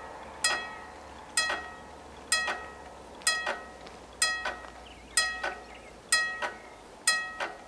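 Level-crossing warning bells striking in a steady rhythm of about one ringing stroke a second, each stroke followed quickly by a softer second one: the crossing has been activated, warning of an approaching train.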